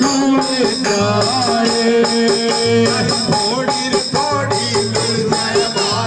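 Rajasthani chang folk music: large chang frame drums beaten in a steady rhythm, with a man singing over them.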